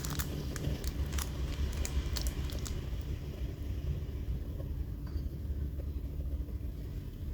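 Scattered light clicks and taps in the first few seconds as a brass Zippo lighter is handled, over a steady low rumble that continues throughout.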